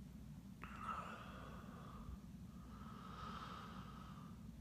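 A person's slow nasal breathing close to the microphone: two long breaths, the first starting sharply about half a second in, the second through the latter half, over a steady low hum.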